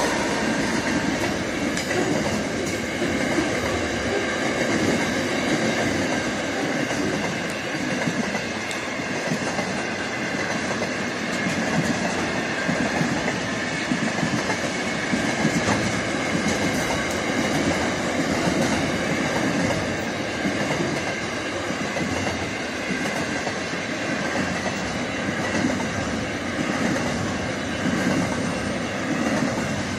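Container freight train's wagons rolling past: a steady rumble and rattle of steel wheels on the rails, with a faint, steady high ring from the wheels.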